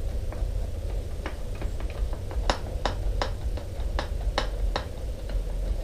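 Irregular sharp metallic clicks and taps of a wrench and fork parts being handled as a heat-loosened, Loctited fork part is unscrewed, about two clicks a second in the middle, over a steady low hum.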